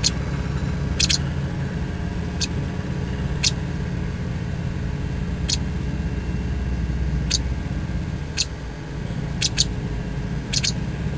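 Wagtail nestlings giving short, high-pitched squeaky cheeps, about one a second at irregular spacing, a couple in quick pairs near the end, over a steady low rumble.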